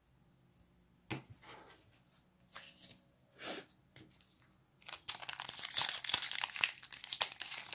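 A Magic: The Gathering booster pack's foil wrapper crinkling and tearing as it is ripped open by hand. A few faint rustles come first, and the dense crackling starts about five seconds in.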